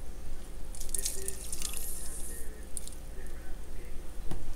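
Half a lemon squeezed by hand, its juice trickling and dripping into a plastic blender cup of coconut milk, loudest over the first couple of seconds.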